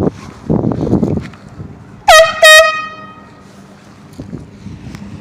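Handheld canned air horn blasting twice in quick succession, about two seconds in: two short, very loud, high-pitched blares, each about a quarter of a second, ringing briefly after the second.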